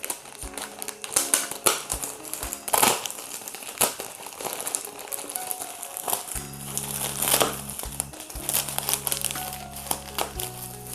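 Plastic parcel wrapper crinkling and crackling in irregular bursts as a knife cuts it open, over soft background music.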